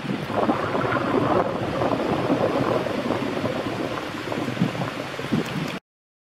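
Wind buffeting the microphone, a rough rushing and rumbling noise that cuts off suddenly near the end.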